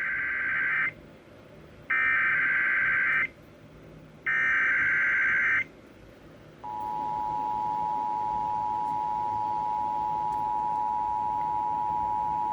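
Emergency Alert System broadcast tones for a tornado warning: three bursts of warbling SAME header data, each just over a second long with about a second's pause between them, then the steady two-tone attention signal starting about six and a half seconds in.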